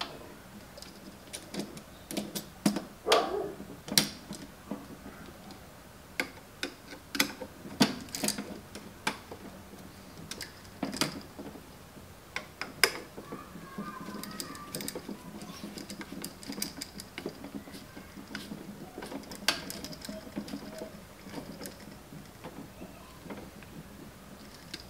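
Screwdriver working the terminal screw of a wall switch, with the switch and its wires handled against a metal electrical box: scattered, irregular clicks, scrapes and small knocks.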